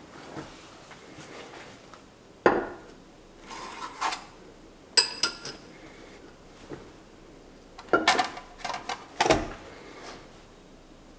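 Metal parts handled on a machine table: a large roller bearing in a heavy steel plate and an aluminium sheet being set down and shifted. Several sharp metal clanks and knocks, one about five seconds in with a brief bright metallic ring, with rustling and scraping between.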